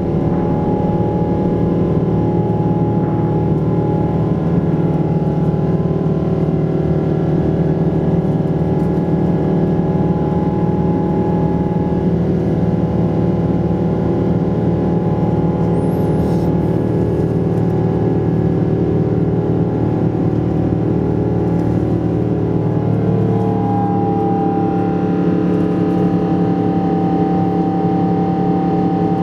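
Boeing 777-200ER engines heard from inside the passenger cabin during the climb after takeoff: a steady, loud drone with several held tones, whose pitch pattern shifts about three-quarters of the way through.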